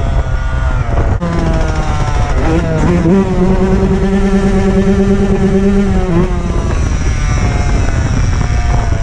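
Dirt bike engine under way, its pitch climbing, then held steady for a few seconds, then dropping off near the end, with heavy wind rumble on the microphone.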